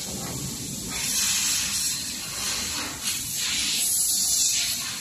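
A hissing, rushing noise that swells and eases, louder about a second in and again around four seconds in.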